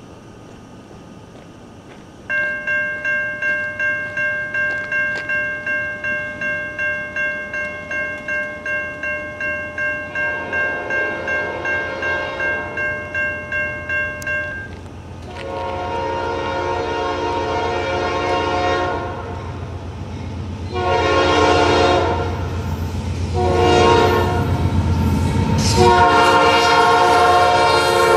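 Safetran Type 3 electronic crossing bell starting about two seconds in, dinging about twice a second, and stopping about halfway through as the gates come down. A Norfolk Southern diesel locomotive's air horn then sounds the grade-crossing signal, long, long, short, long, over the low rumble of the approaching engine.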